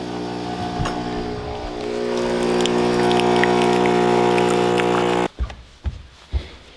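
Coffee machine running its pump with a steady hum while it dispenses coffee into a mug, cutting off abruptly about five seconds in. A few light knocks follow.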